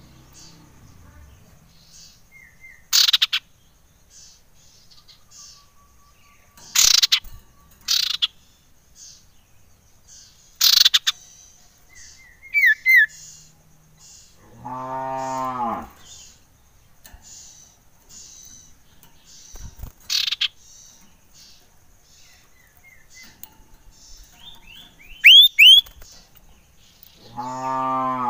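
Caged common iora (cipoh) calling: loud, sharp notes a few seconds apart, and short falling whistles near the middle and near the end. Two low, drawn-out moo-like calls sound behind it, one about midway and one at the very end.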